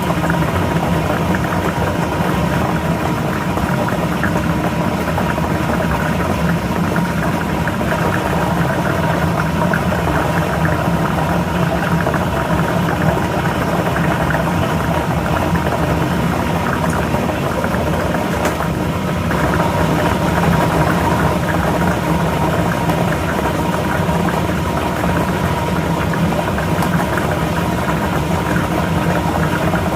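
Lottery ball machine running: its blower motor hums steadily while the plastic balls churn and rattle inside.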